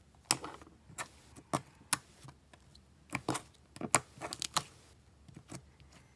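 Slime being squeezed and worked in the hands, giving a string of sharp, irregular clicks and pops, about two a second.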